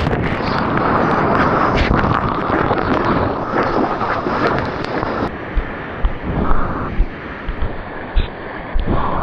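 Loud rushing of ocean water and wind buffeting an action camera's microphone while surfing. The rushing eases a little past halfway, and a few short low thumps follow.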